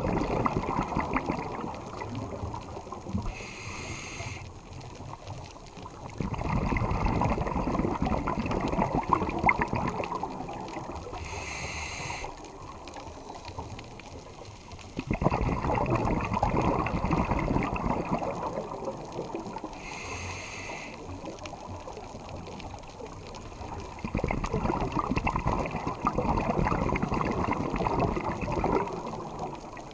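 Scuba diver breathing underwater through a regulator. Each breath is a short hiss of inhalation followed by a longer rush of exhaled bubbles, repeating about every eight to nine seconds.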